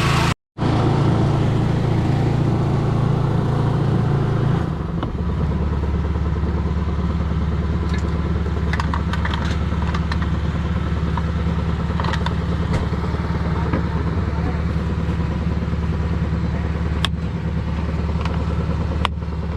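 An engine running steadily. About five seconds in it settles to a lower, deeper hum, with scattered clicks and clanks over it.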